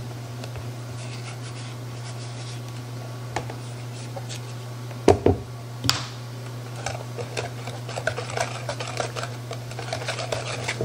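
Small wire whisk stirring thin chocolate pie filling in a bowl, with light scraping and ticking against the bowl's sides that grows busier from about seven seconds in. There are a couple of sharper knocks around the middle, and a steady low hum underneath.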